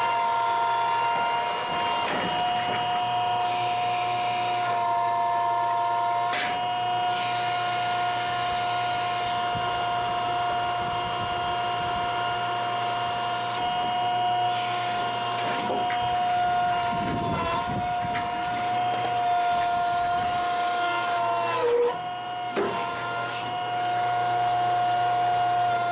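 Overhead hay crane's drive motors running with a steady high whine as the grab works over the hay, the pitch stepping slightly now and then. About four seconds before the end the whine drops briefly, with a short clunk.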